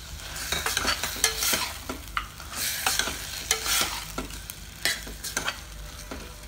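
Steel ladle stirring and scraping raw chicken through tomato-onion masala in a stainless steel pressure cooker: repeated swishing strokes with sharp clicks of metal on metal, over the sizzle of the masala frying in oil.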